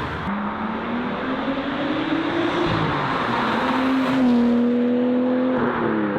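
Nissan R34 Skyline with an aftermarket Tomei exhaust accelerating: the engine note climbs, drops at a gear change about three seconds in, rises again and holds, then falls away near the end.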